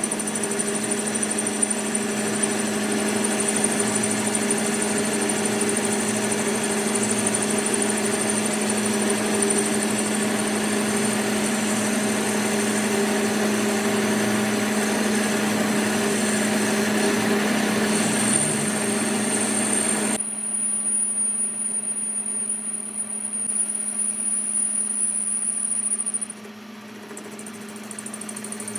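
A machine tool's motor running steadily with a constant low hum and a high whine. About two-thirds of the way through the sound changes abruptly to a quieter, thinner running, and it drops lower still near the end.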